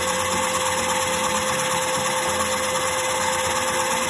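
Small DC gear motor driving a crank-and-syringe piston air compressor, running steadily with a constant hum and a steady high tone.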